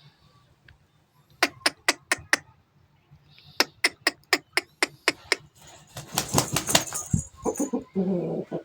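Two runs of sharp, evenly spaced clicks or taps, about four to five a second, then a denser flurry of clicks with hiss, and a short, lower pitched sound near the end.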